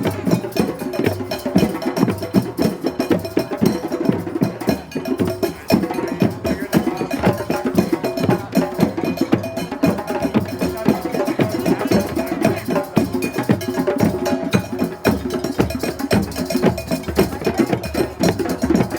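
Drum circle: many hand drums and other hand percussion played together in a steady, dense groove, with bright clacking struck percussion, such as a cowbell or wood block, riding on top.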